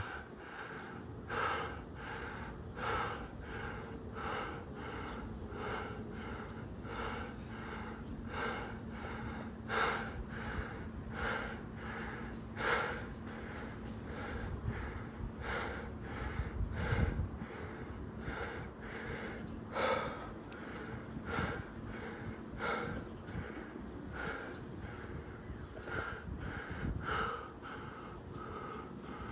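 A person panting hard from sprint training, heavy breaths in a steady rhythm of about three every two seconds.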